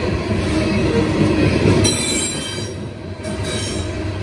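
Loaded coal cars of a CSX freight train rolling past with a steady low rumble of wheels on rail. From about two seconds in, a high-pitched wheel squeal sounds for about a second and a half, then cuts off.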